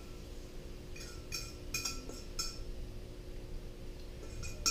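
Metal spoon clinking lightly against a stainless steel frying pan while hot oil is spooned out: a few short ringing taps between one and two and a half seconds in, and a couple more near the end.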